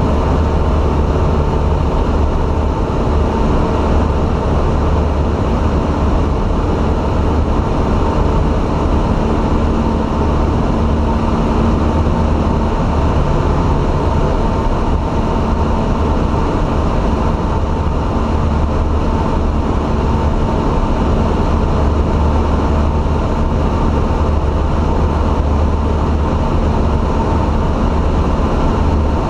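Steady drone of a single-engine light aircraft's piston engine and propeller, heard inside the cabin in flight, with a deep low throb and a few steady tones over rushing air noise. It holds even throughout with no change in pitch, at constant power.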